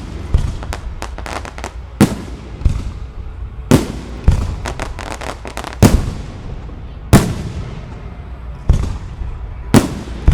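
Fireworks display: aerial shells bursting with loud sharp bangs every second or two, with short runs of rapid crackling between them.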